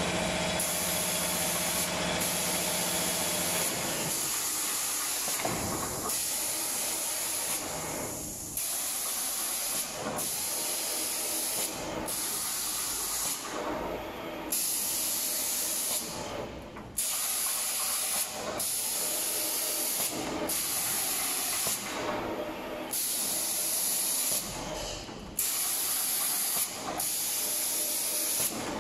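Automatic cabinet-door spray painting machine's air spray guns hissing as they spray paint, cutting in and out every second or two. A steady low hum sits underneath for the first few seconds.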